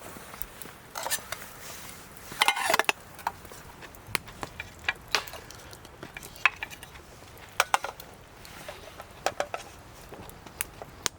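Metal camp cookware and utensils clinking and knocking as they are handled: scattered sharp taps, with a denser clatter about two and a half seconds in.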